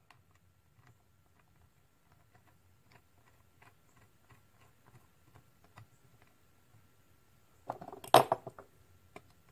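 Small steel engine-governor parts and tools clicking and ticking lightly as they are picked over on a workbench, followed by a louder clatter of metal parts about eight seconds in.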